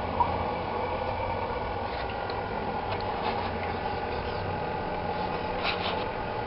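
Steady mechanical hum of a motor running, with a short sharp click just after the start and a few faint ticks.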